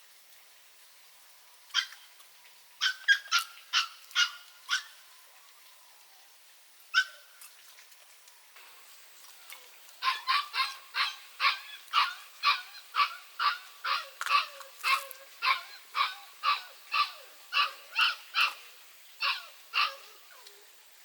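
Duck quacking loudly in a long regular series of about two quacks a second, after a few scattered quacks near the start.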